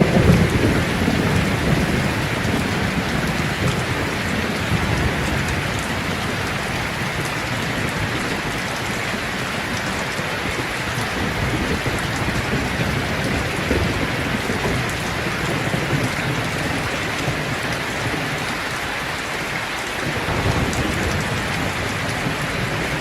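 Heavy rain falling steadily, a dense even hiss, with a little more low rumble in the first couple of seconds.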